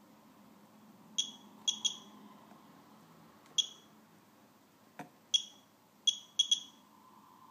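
Radex Geiger counter giving eight short, high beeps at irregular intervals, one for each count detected, as it measures gamma radiation from a watch's radium-painted hands coming through the stainless steel case back. A soft knock comes about five seconds in.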